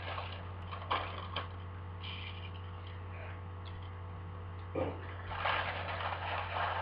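Faint crinkling of a plastic bag and a few light knocks as food is tipped from it into a glass cup, over a steady low hum.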